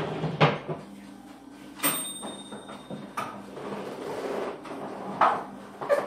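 Household kitchen knocks: a handful of sharp clunks, about one every second or so, like cupboard doors or a utensil against a pot, with soft clatter between them and a faint thin high tone about two seconds in.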